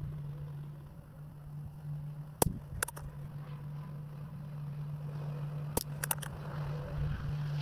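.22 LR rimfire target rifle fired twice, about three seconds apart: two sharp shots, each followed shortly by a couple of fainter clicks, over a steady low hum.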